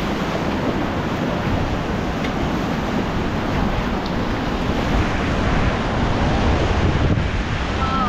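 Fast whitewater rushing and churning around a river raft in rapids, a steady roar, with wind buffeting the microphone.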